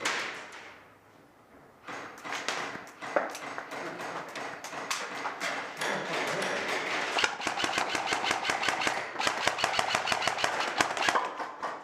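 Airsoft guns firing: one sharp shot at the start, then from about two seconds in a long run of sharp, rapid shots, several a second.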